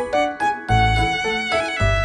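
Upbeat instrumental background music: a bright melody over a steady bass beat.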